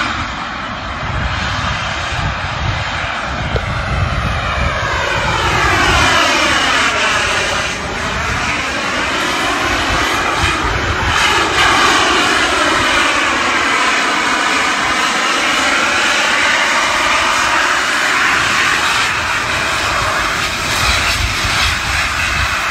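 Jet turbines of a Zapata Flyboard Air hoverboard running in flight: a loud, continuous turbine whine over a rumble, its pitch gliding down and back up twice as the board passes and manoeuvres.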